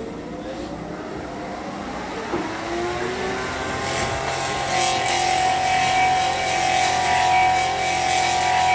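Clog-copying lathe starting up, its whine rising in pitch over the first few seconds, then running at a steady high whine. From about four seconds in, its cutters carve the wooden clog blank, adding a rough cutting noise as the sound grows louder.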